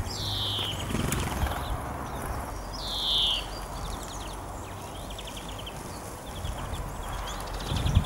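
Small songbirds calling: two loud downward-sliding calls about three seconds apart, with quick dry trills in between, over a steady low hum.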